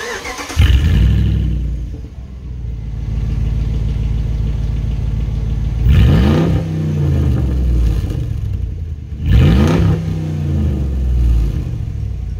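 A 5.7-litre V8 engine running at idle and revved twice, about six and nine and a half seconds in, each rev rising and falling in pitch.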